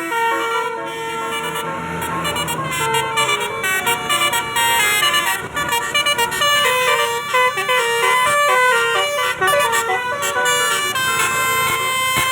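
Telolet bus horns playing quick melodic runs of notes that step up and down, often several notes sounding together.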